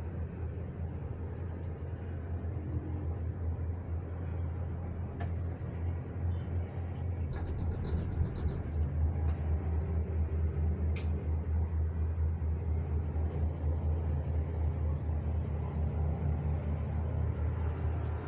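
Steady low rumble inside a moving cable-car gondola cabin, growing a little louder partway through, with a few faint clicks.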